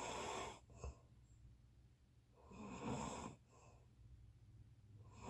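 A sleeping person snoring: a rasping breath about every two and a half seconds, each followed by a short, quieter puff.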